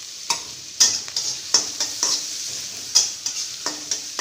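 Chopped onion sizzling in hot oil and ghee in a kadai while being stirred. The spoon scrapes and knocks against the pan about every half second, some strokes ringing briefly.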